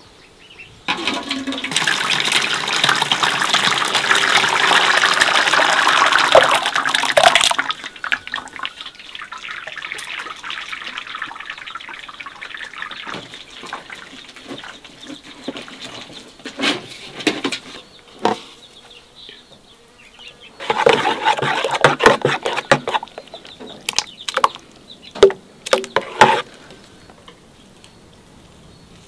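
Water poured from an enamel bowl into a large aluminium pot in a steady rush for several seconds. It is followed by quieter sloshing and splashing as a hand works in the water of an aluminium basin, with another short pour and a few sharp splashes near the end.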